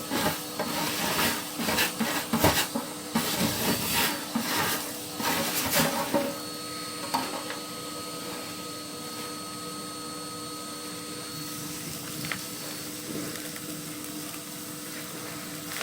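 Irregular scraping and rubbing from chimney sweeping gear for about the first six seconds, over a steady motor hum with a thin high whine. After that only the hum carries on.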